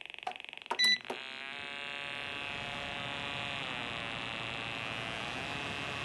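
A space heater being switched on: a short electronic beep with a click about a second in, then a steady electrical buzz that holds to the end.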